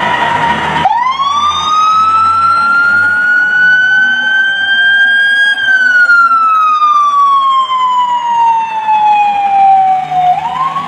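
Fire truck siren winding up, climbing in pitch for about five seconds, then sliding slowly back down, and starting to rise again near the end.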